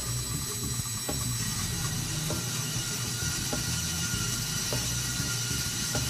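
HEMSAW VT120HA-60 vertical bandsaw cutting a round metal tube at a miter: a steady hiss over a low machine hum, with a faint tick about every second and a bit.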